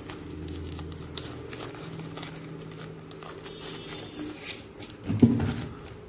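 Paper wrapper of a razor blade crinkling and tearing as it is peeled off by hand, in scattered small crackles, with a brief louder sound about five seconds in.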